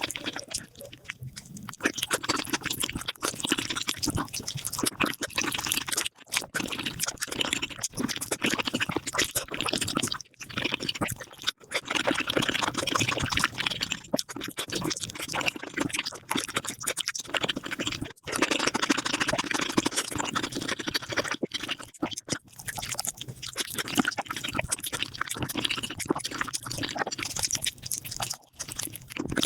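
Mukbang eating sounds of spicy beef feet, sped up five times: a dense, rapid run of chewing, smacking and wet crunching close to the microphone, cut abruptly several times where one clip gives way to the next.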